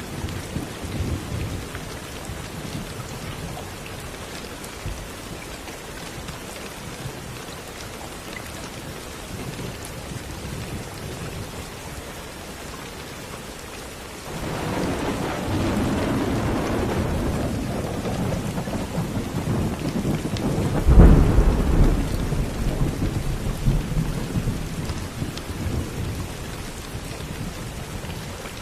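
Steady rain falling, with thunder: a low rumble builds about halfway through, peaks in a louder clap a few seconds later, then rolls away under the rain.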